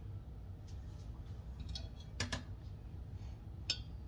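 A few faint clicks and two light knocks from kitchenware being handled as a mini food processor bowl is tipped over a stainless mixing bowl, over a low steady room hum.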